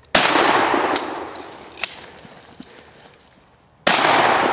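Two shots from a Pardner Pump 12-gauge pump-action shotgun, about three and a half seconds apart, each trailing off in a long echo, with a sharp click between them.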